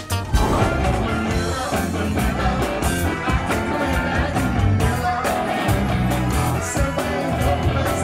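Upbeat pop-rock song with a singer over bass and a steady beat.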